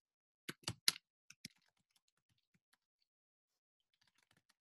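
Computer keyboard typing: three sharper keystrokes about half a second in, then a run of faint key clicks that thins out and picks up again near the end.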